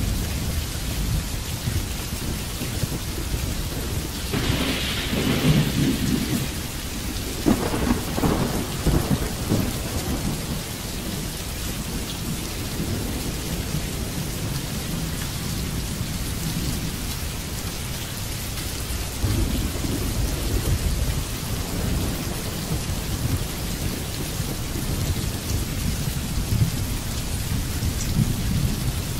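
Steady heavy rain with thunder rumbling low throughout; a louder burst of thunder comes about four seconds in and crackles on until about ten seconds in.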